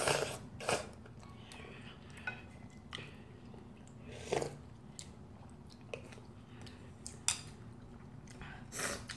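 A person slurping and chewing instant ramyeon noodles, with a few short slurps (one near the start, one about four seconds in, one near the end). Small clicks of chopsticks and a spoon against a ceramic bowl come in between.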